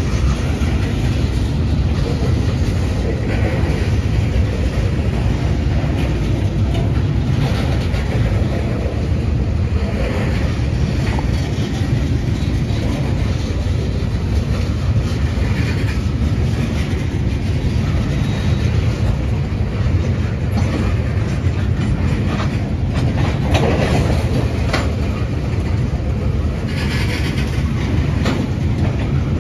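Ethanol tank cars of a freight train rolling past: a steady low rumble of steel wheels on rail, with scattered clicks and clanks from the wheels and trucks.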